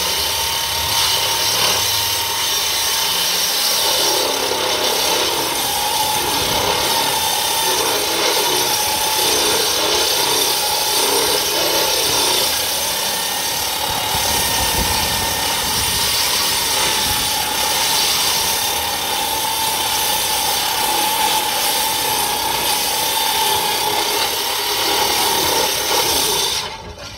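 Angle grinder with a Star Cup wheel grinding paint off a steel plate: a steady motor whine over the rasp of the wheel on the metal. It cuts off near the end.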